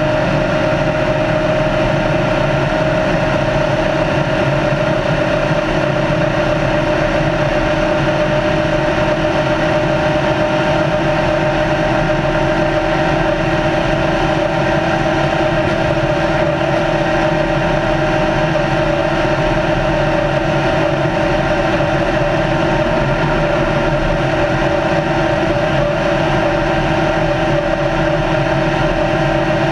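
Retired NASCAR stock car's engine running hard and steady at high cruising speed, its note holding one constant pitch, with road and wind noise underneath.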